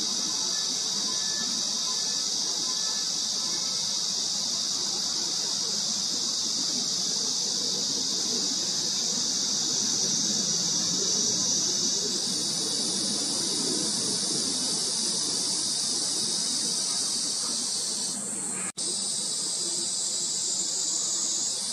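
A dense, steady, high-pitched insect chorus. Its pitch steps up about halfway through, and it drops out briefly near the end.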